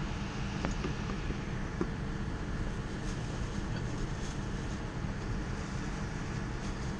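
Steady rumble and hiss of a Boeing 787-9's cabin on the ground before takeoff, with a few faint clicks in the first two seconds.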